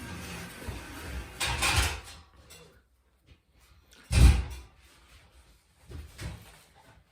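Objects being handled and moved: scraping and rustling for about two seconds, then one loud thump about four seconds in and a couple of softer knocks near the end.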